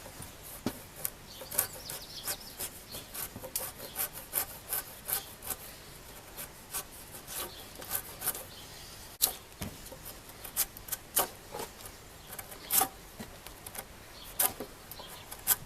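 A freshly sharpened knife blade scraping bark off a chunk of log, testing the edge: short, sharp scraping strokes at an uneven pace, a few each second.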